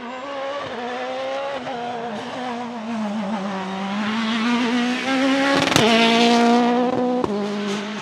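Citroën DS3 WRC rally car's turbocharged 1.6-litre four-cylinder engine driving hard through the bends, its pitch stepping with gear changes as it gets louder and passes, loudest about six seconds in. Sharp cracks stand out around then and again near the end.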